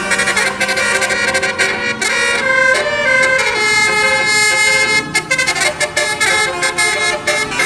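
Indonesian bus telolet horn playing a quick tune on several pitched air-horn tones at once. The notes change many times a second, with a few short breaks in the second half.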